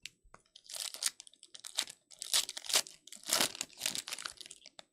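Trading-card pack wrapper crinkling as it is torn open and handled, a run of irregular rustling crackles.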